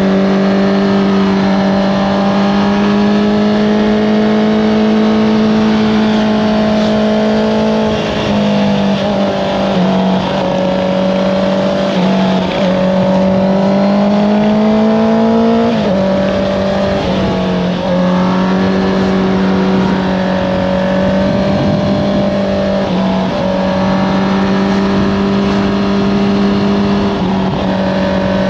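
Honda CBR650R's inline-four engine running through an Akrapovič exhaust under way, holding steady revs between several quick dips and shifts in pitch as the throttle is eased and gears change.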